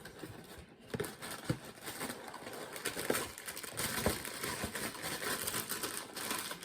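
Cereal packaging being handled: a plastic liner bag crinkling and rustling, with a few sharp clicks and knocks.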